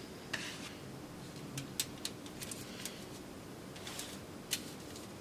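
Faint handling sounds: scattered soft clicks and taps as a silicone lid is fitted and pressed down onto a filled silicone popsicle mold.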